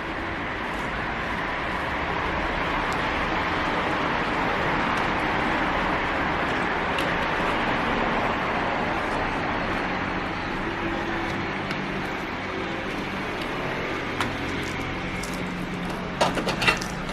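A steady rushing background noise that swells and then eases, with a low hum under it; near the end, a quick cluster of sharp plastic clicks as PC power cable connectors are handled.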